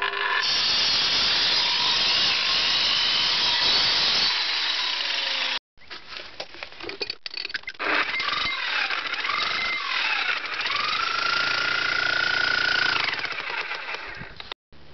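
Angle grinder cutting into concrete, running loud and steady for about five seconds before cutting off abruptly. After short edits, a corded electric chipping hammer with a chisel bit breaks up the concrete in long runs, its motor pitch shifting.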